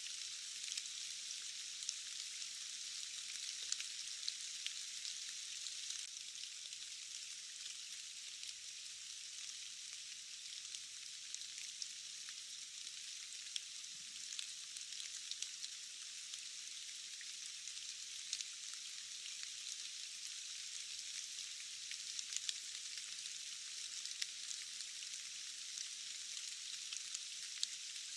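Steady rain: an even hiss studded with many small, sharp drop ticks.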